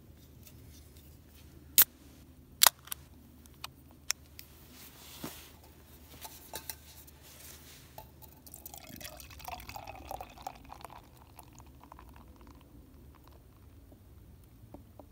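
A few sharp clicks and knocks, two of them loud about two seconds in, then liquid poured briefly into a container for a couple of seconds.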